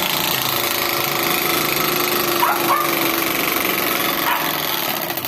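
Card flapping against the spokes of a spinning bicycle wheel, a steady rapid buzz meant to sound like a motorbike engine.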